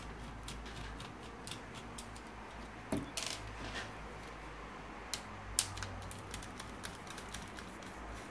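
Scattered small clicks and taps of a screwdriver turning screws out of a printer fuser unit's plastic frame, and of the unit being handled on a table. There is a louder clatter about three seconds in and a sharp click past five seconds.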